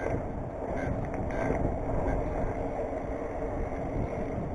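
Steady muffled rumble of wind and bicycle tyres rolling on asphalt, picked up by a GoPro sealed in its waterproof case while riding.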